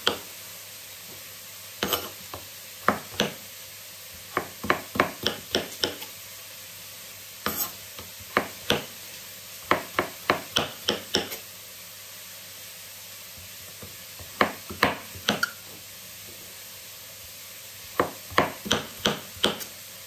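Chef's knife chopping a peeled raw potato into small cubes on a cutting board: sharp knocks in quick runs of several strokes, with short pauses between the runs.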